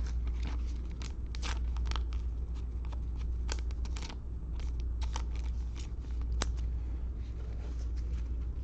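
Trading cards and cello-pack wrappers being handled: irregular sharp clicks, snaps and crinkles of card stock and plastic wrap, over a steady low hum.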